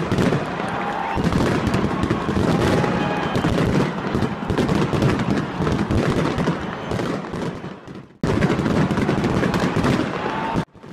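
Fireworks display going off in rapid succession: dense popping and crackling from aerial shells and spark fountains. The sound cuts out briefly about eight seconds in and again near the end.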